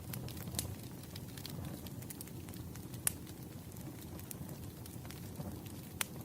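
Wood fire crackling steadily over a low rumble, with sharp pops scattered through it, the loudest about three seconds in and again near the end.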